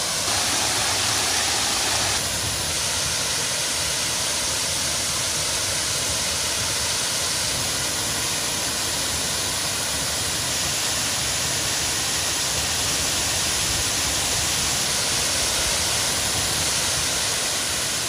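Cambugahay Falls, a waterfall, rushing steadily, a little louder for about the first two seconds.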